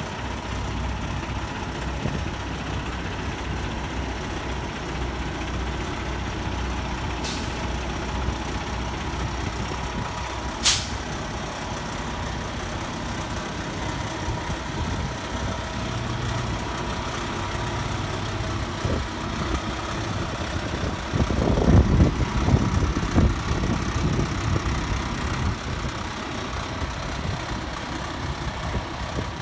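Heavy truck idling with a steady low rumble. There is a sharp snap about ten seconds in, and a louder rough burst around twenty-two seconds.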